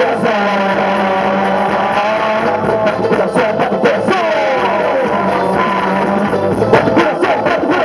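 Live reggae band playing: a lead melody of sliding, bending notes over held low notes and drum hits.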